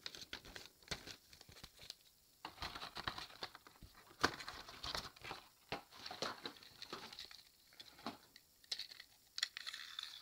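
Irregular clicks, crinkling and rustling of hands handling a plastic toy and its packaging. Near the end a steady whirring starts: the small motor of a battery-powered toy train switching on.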